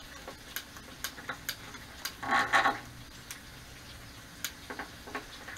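Irregular sharp clicks of a hand lighter as it tries to light a small portable propane grill's burner, with a short, louder rush of noise about two and a half seconds in.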